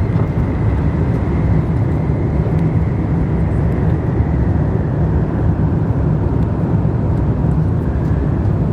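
Jet engine noise heard inside an Airbus A350-1000's cabin: a steady, loud low rumble from its Rolls-Royce Trent XWB engines, with a faint high fan tone that sinks slightly in pitch after the middle.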